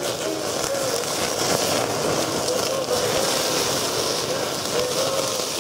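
Beef small intestine (horumon) sizzling on a wire grill over an open fire: dripping fat flares the flames, with a steady crackling hiss.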